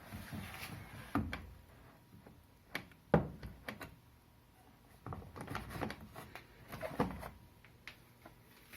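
Knocks and clicks from parts of a Haier HW60-10636 washing machine being handled, a few separate thuds with the loudest about three seconds in.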